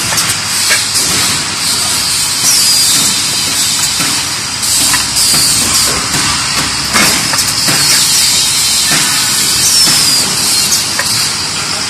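DB-470PP plastic thermoforming machine running through its forming cycle: a steady high hiss of compressed air, broken by repeated air blasts and knocks of the press as trays are formed, cut and pushed out.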